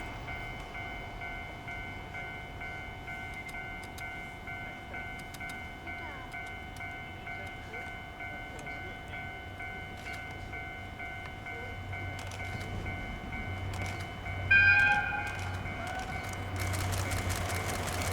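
Electronic level-crossing alarm ringing in a steady, evenly pulsing two-tone pattern. About fourteen seconds in, an approaching electric locomotive sounds one short, loud horn blast, and the rumble of the train hauled by EF55 1 and EF64 1001 grows toward the end.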